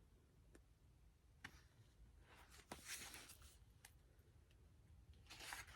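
Faint rustling and light clicks of paper as the pages of a photobook are handled, with scattered ticks early on and busier rustling near the end.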